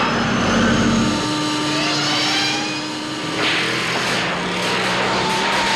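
DeLorean time machine sound effect: a vehicle running under a slowly rising electric whine. About three and a half seconds in, a sudden rush of noise sets in, followed by a series of short electrical crackles.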